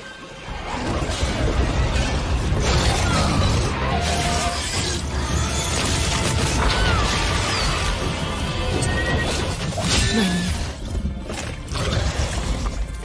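Dramatic trailer music mixed with crashing, shattering and impact sound effects.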